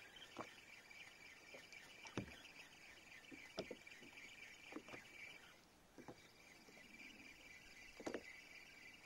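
Faint, irregular small knocks and splashes of water against a kayak hull, over a steady high-pitched buzz that breaks off briefly about six seconds in.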